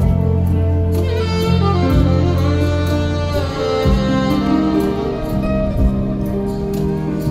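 Saxophone playing a slow, sustained melody over a backing track with a bass line and a steady beat.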